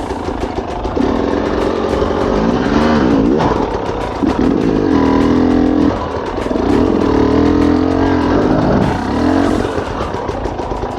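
Dirt bike engine revving hard in repeated bursts, its pitch climbing and dropping back between throttle blips, as the bike is worked up over rocks.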